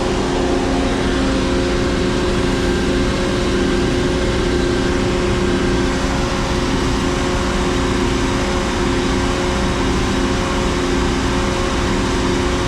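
Reed B50G concrete pump's 7.3 L Ford Godzilla gasoline V8 running at a steady speed, a constant engine drone with an even mechanical rush over it and no change in pitch.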